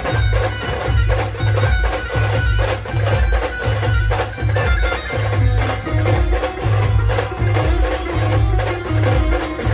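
Band music: a brass band plays a Ganpati devotional film song over a steady, heavy bass drum beat, with held melody notes above it.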